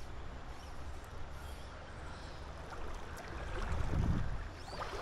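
Steady rush of a shallow, rippling river, with a low buffeting of wind on the microphone that swells about four seconds in.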